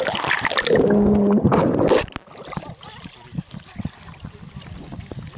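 Sea water splashing and churning over an action camera held at the waterline, with a short low hum about a second in. About two seconds in it turns suddenly muffled and much quieter, leaving low sloshing and soft thuds.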